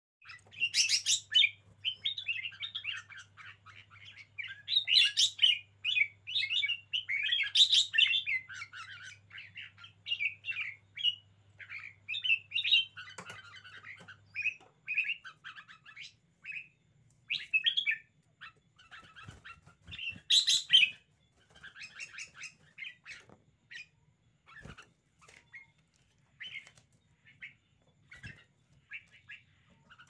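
Caged red-whiskered bulbul singing and chattering in quick, short notes, busiest in the first half and sparser later, with a few louder phrases.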